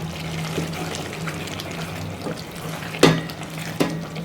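Pot of chicken curry simmering with a steady liquid bubbling, and one sharp knock, like a utensil striking the pot, about three seconds in.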